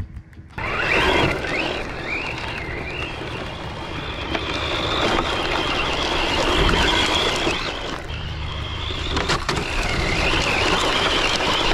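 Carisma M48S 1/8-scale electric RC rally car driven hard on dirt: the whine of its brushless motor rises and falls again and again with the throttle, over a steady rushing noise. A sharp knock comes about nine seconds in.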